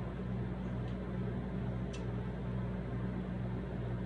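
Steady low mechanical hum with a constant hiss, with a couple of faint clicks about one and two seconds in.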